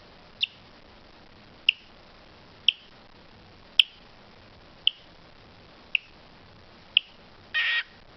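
Seven sharp, high-pitched clicks, evenly spaced about a second apart, then a short harsh burst near the end.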